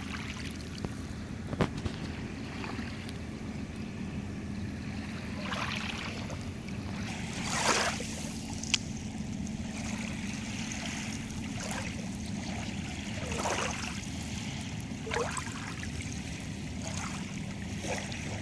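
Small lake waves washing up onto a sand and pebble shore, a swish every few seconds, over a steady hiss of rain falling on the water. There are a couple of sharp ticks, the clearest about nine seconds in.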